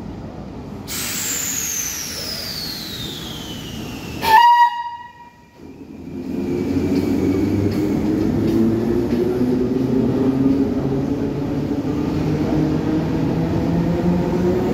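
Vintage electric S-Bahn train running through a station: a high whine falling in pitch, a short loud horn blast about four seconds in, then the drone of its motors and wheels rising slowly in pitch as the train passes.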